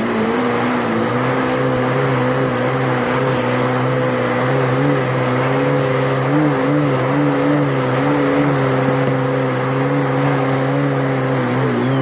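Upright vacuum cleaner motor switched on, spinning up right at the start and then running at a steady, loud whine and rush of air.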